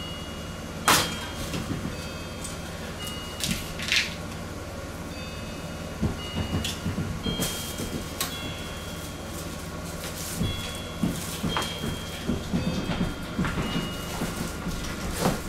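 Ebike packaging being handled in its cardboard box: foam, paper and plastic rustling and scraping, with short high squeaks. A few sharp clicks or knocks, the loudest about a second in, and a run of low knocks near the end.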